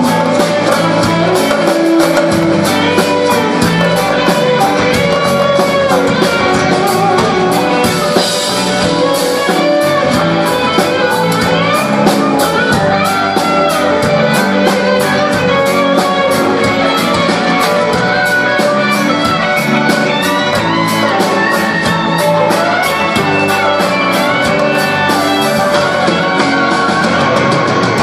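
Rock band playing live: electric guitars, organ and drums keeping a steady beat, heard loud from among the audience.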